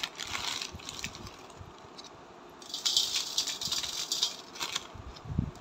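Bitter gourd slices handled by hand in a steel plate while coarse rock salt is worked into them. Light clicks come near the start, then a dense, grainy rattle lasting about two seconds in the middle.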